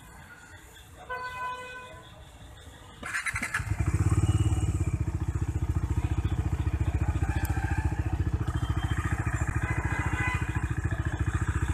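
Bajaj Dominar 250's single-cylinder engine started on the electric starter: a short crank about three seconds in, the engine catches with a brief rise in revs, then settles into a steady, fast-pulsing idle.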